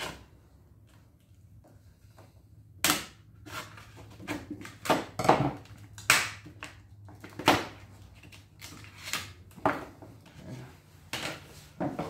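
Utility scissors cutting open a stiff plastic blister pack: a string of sharp, uneven snips and crackles of plastic, starting about three seconds in.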